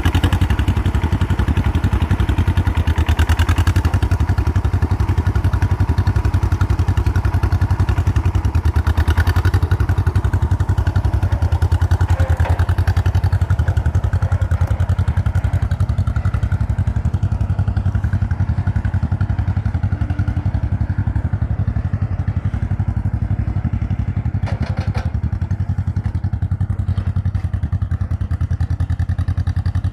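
Small tractor's engine running at a steady speed as the tractor is driven, a low, even engine note.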